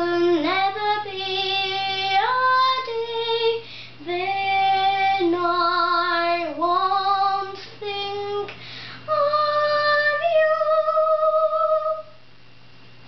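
A nine-year-old girl singing solo in a high voice, slow held notes that slide between pitches, ending on a long held note that stops about twelve seconds in. A faint steady low hum lies under the singing and remains after it stops.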